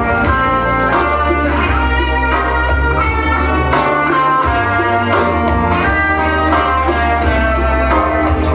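Live band music without singing: a guitar lead playing melodic lines with several bent, gliding notes over a steady low bass.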